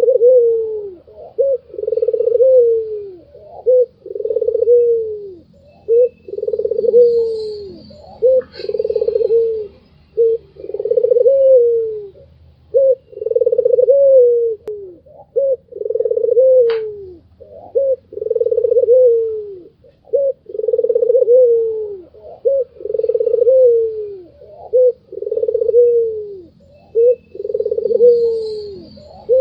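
White ringneck dove (puter putih) cooing over and over: each phrase is a short note followed by a longer coo that drops in pitch, repeated steadily about every two seconds. One sharp click sounds about two-thirds of the way through, and faint high chirps come from another small bird.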